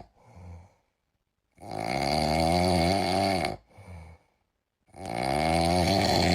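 Snoring: two long, loud snores about three seconds apart, each with a wavering pitch, and a short quiet breath before each one.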